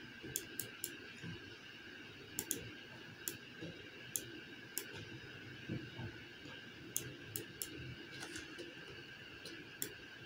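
Computer mouse clicking: about fifteen sharp, short clicks at irregular intervals, some in quick pairs, over a faint steady hum.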